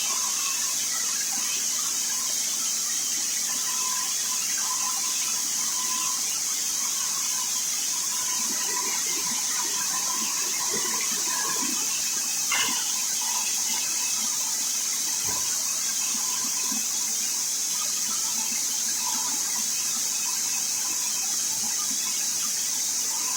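Parallel vertical band sawmill running with a steady, high-pitched hiss, a faint intermittent tone beneath it and a single sharp click about halfway through.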